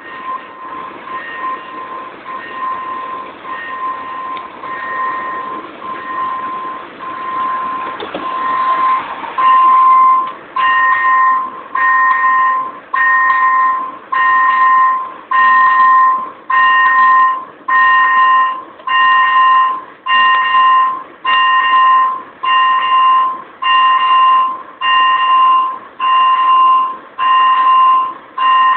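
Level-crossing warning signal sounding while the barriers are down for a train: a single electronic tone, softer and almost unbroken for about the first ten seconds, then beeping loudly on and off a little more than once a second.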